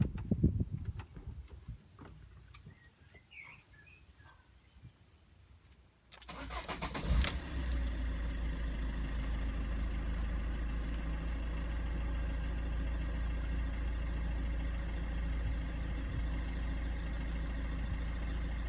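Fiat Doblo engine cranked over by the starter about six seconds in, catching after about a second and then idling steadily. A few faint clicks come before the start.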